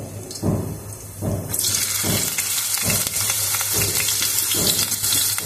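Thin potato slices dropped one at a time into hot mustard oil, the oil sizzling; the sizzle grows much louder about a second and a half in as more slices go in, with a soft drop about once a second.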